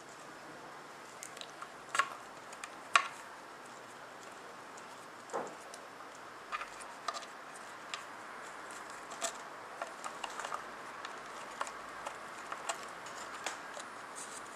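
Scattered small clicks and taps of wired potentiometers being handled and pushed through their holes in a wooden guitar body's control cavity, with two sharper knocks about two and three seconds in.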